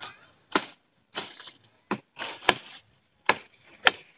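Leafy twigs being snapped off a tree by hand: a series of sharp cracks, roughly one every half second or so, with leaves rustling in between.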